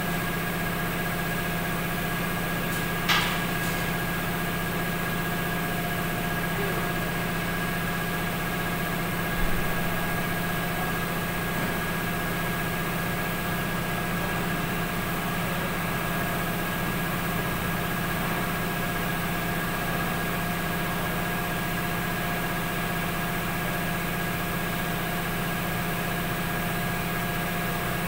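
Steady machine hum with a constant pitch, broken by a sharp click about three seconds in and a dull thump near ten seconds.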